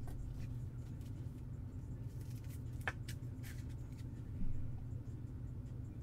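Faint clicks and rustles of a trading card in a clear plastic holder being handled, with one sharper click about three seconds in, over a steady low hum.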